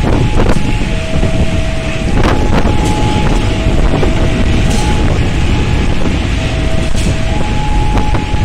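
Level-crossing warning alarm alternating between a higher and a lower tone, about a second each, over heavy wind and rain noise on the microphone. A CC 201 diesel locomotive rolls past with a few sharp clacks from its wheels.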